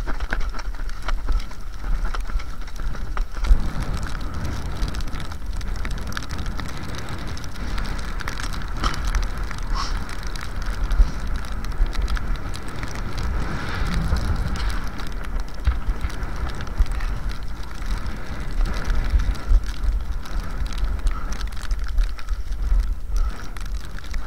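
Cross-country skis sliding and scraping over packed snow, with ski poles planting in many small clicks, over a steady low rumble on the body-worn camera's microphone.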